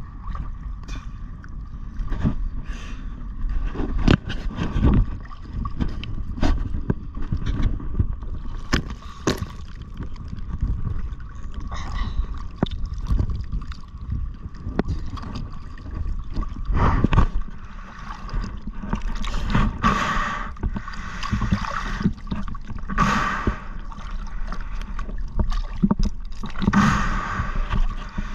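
Seawater splashing and sloshing right at the camera as a snorkeler moves through the shallows, with knocks and scrapes from handling, and several louder splashes in the second half.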